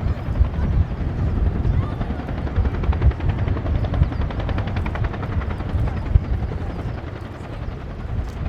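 Military helicopter flying past, its rotor beating in a fast, even rhythm that is clearest about three to five seconds in, over a steady low rumble.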